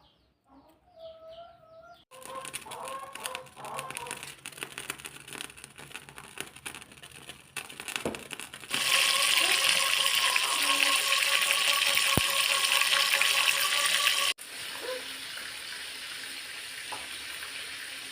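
Oil sizzling in a pan as food fries: a steady hiss in several cut-together stretches, loudest for about five seconds in the middle, then softer.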